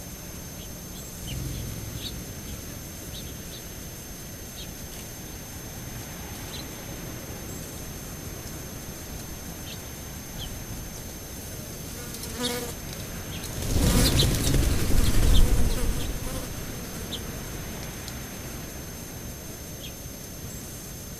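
A flying insect buzzing close past the microphone: a short buzz about twelve seconds in, then a louder buzz lasting two to three seconds that fades away.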